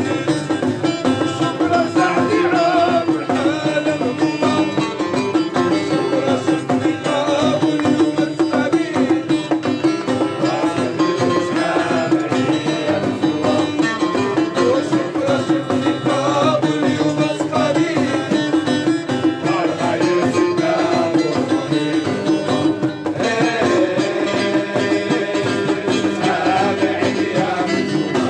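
Traditional folk music played continuously, recorded live on location: busy melody lines over a steady low drone.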